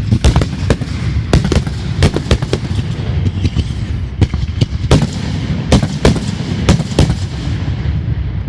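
Fireworks exploding: an irregular string of sharp bangs, about two a second, over a continuous low rumble.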